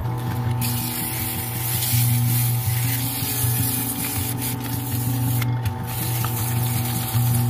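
Sandpaper hissing against a wooden goblet spinning on a wood lathe, over the steady hum of the lathe motor. The hiss starts abruptly and lets up briefly about five and a half seconds in.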